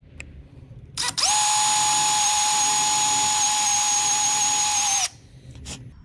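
Cordless electric drill spinning up about a second in and running at a steady high-pitched whine for about four seconds as it bores a hole into the end of a wooden teapot handle, then stopping.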